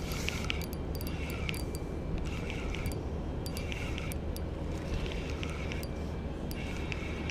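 Spinning reel being cranked to retrieve a topwater lure: a light whirring of the reel's gears with small clicks, coming in short spells about once a second, over a steady low rumble.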